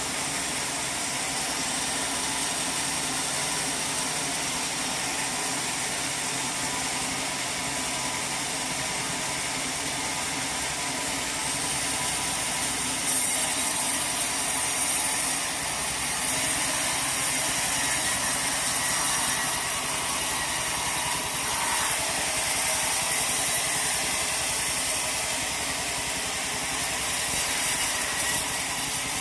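Sawmill machinery running steadily, an engine with mechanical clatter. About halfway through, a louder, higher hiss joins in.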